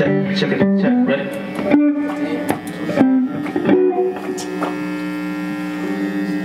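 Electric guitar through an amp: a quick run of plucked single notes, then from about four seconds in a chord left ringing over a steady amp hum.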